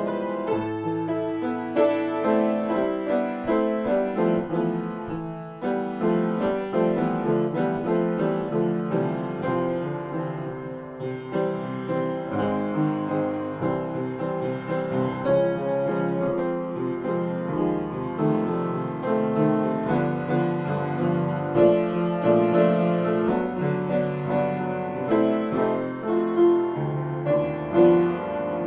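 Solo upright piano playing an improvised piece, a continuous flow of overlapping notes and chords with brief lulls about five and eleven seconds in.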